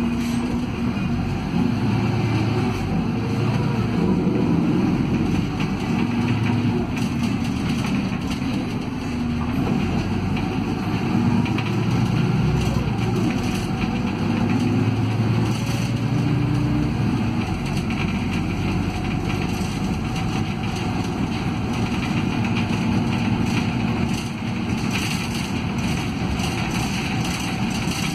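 A city bus heard from inside the cabin, pulling away and running up through the gears of its ZF Ecomat automatic transmission: a steady engine drone with a gearbox whine that changes pitch in steps at each shift. It reaches fourth gear with the lockup clutch engaged near the end.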